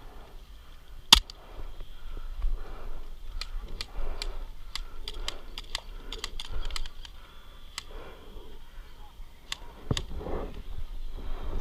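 Airsoft guns firing across the field: scattered sharp pops and clicks, with one loud crack about a second in and a quick run of shots in the middle, over faint voices.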